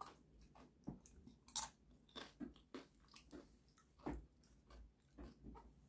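A person chewing food, with wet mouth clicks and small crunches at an irregular pace; the loudest come about one and a half seconds in and again around four seconds.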